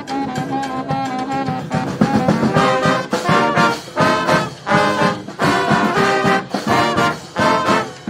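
Street brass band playing: saxophones, trombones, trumpets and sousaphones over drums. Held notes give way about two seconds in to louder, short ensemble hits in a steady rhythm.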